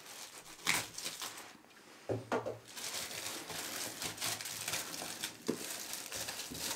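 Thin plastic shrink wrap being torn open and pulled off a cardboard box by hand: a few short rips at first, then continuous crinkling from about three seconds in.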